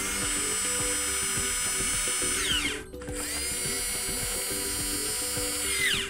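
Nuki Smart Lock 4.0's electric motor turning the lock during its rotation calibration: a steady high whine in two runs of about three seconds each, each ending as the pitch falls and the motor stops.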